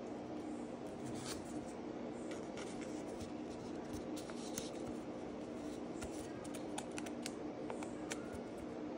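Pokémon trading card being slid into a clear plastic sleeve and handled: faint plastic scraping with scattered light clicks, over a steady low hum.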